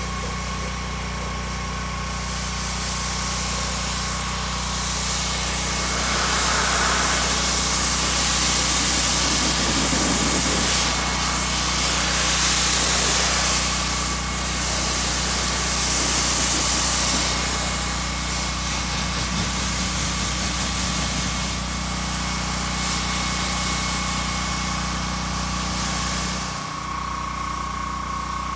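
Pressure washer running, its motor giving a steady hum under the hiss of the water jet as it rinses snow foam off a car's bodywork. The hiss rises and falls as the spray moves over the panels, and eases off a couple of seconds before the end.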